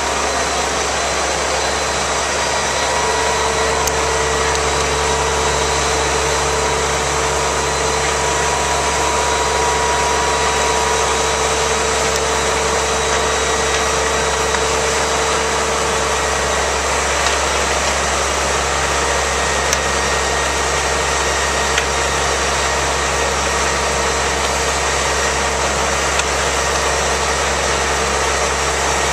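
Fire engine's engine running steadily close by, with a steady whine over it for several seconds in the first half and a few faint clicks later on.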